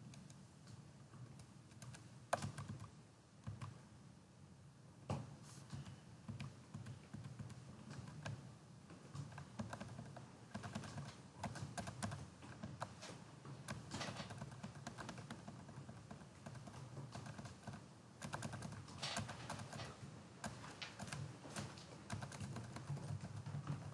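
Irregular clicks and taps of a computer keyboard and mouse as slides are paged through, a few louder clicks standing out, over a low background hum.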